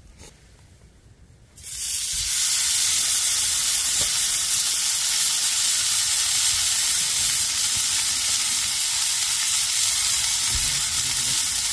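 A loud, steady hiss, high in pitch, that cuts in suddenly about a second and a half in and holds at an even level.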